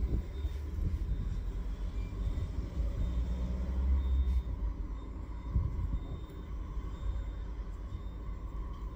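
Low, uneven rumble that swells about four seconds in and again a little later.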